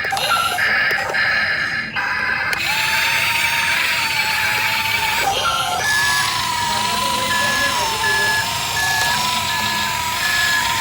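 Electronic reversing-style beeps from a toy RC excavator's sound effects, a steady series of short beeps at one pitch that starts about halfway through, over music and a wavering electronic tone.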